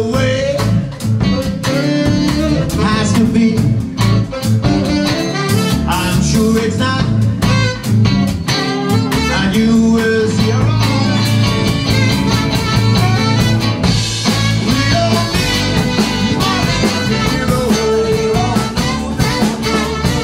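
Live blues band playing: electric guitar, keyboard, bass, drums and saxophone, with a male lead vocal.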